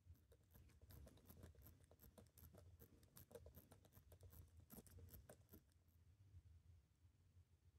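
Faint, quick clicks and taps of small metal watchmaker's tools and a movement holder as a Seiko 6138 chronograph movement is handled and repositioned. The clicking stops about six seconds in.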